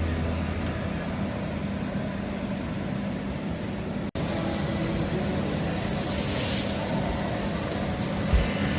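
CNC milling machine running while cutting brass, a steady machine noise. After a brief break about four seconds in, a steady high whine joins it, and near the end there are a couple of low thumps.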